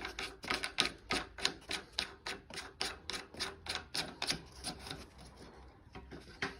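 Rapid plastic clicking, about three to four clicks a second, as a plastic nut is spun by hand onto the threaded shank of a new toilet fill valve. The clicks thin out and die away about five seconds in.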